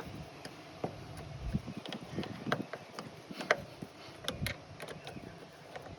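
Screws being driven by hand into the lid hinge of a Dometic CFX3 fridge: scattered small clicks and ticks of the hand tool and metal parts.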